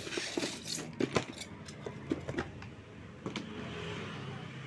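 Unpacking handling noise from the pump's accessories: plastic bags rustling and parts clicking and knocking against each other in a series of sharp taps, over a steady low hum.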